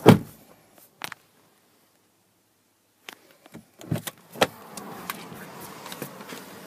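Plastic storage-compartment lids and latches in a pickup truck's cabin being handled: a loud knock at the start and a click about a second in, then a stretch of dead silence, then a string of sharp clicks and knocks.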